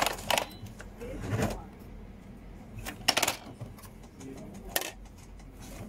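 Brother MFC-J3530DW inkjet printer's mechanism clattering in short bursts about every second and a half while it runs a cycle from its maintenance mode.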